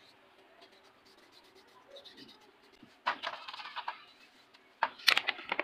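Scraping and clattering of car AC compressor parts being scrubbed clean by hand in a metal tray, in two bursts about three and five seconds in, the second the louder.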